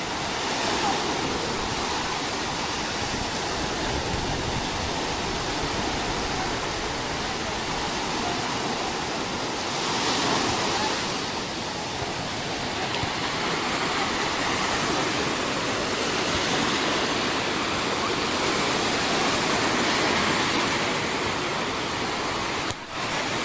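Sea surf washing onto a beach: a steady rush of breaking waves that swells louder about ten seconds in and again later on.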